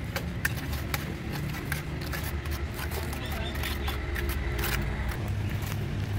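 Wet cement mortar being scooped and pressed by hand onto the inside wall of a cement pot: irregular wet slaps, clicks and scrapes. A steady low rumble runs underneath.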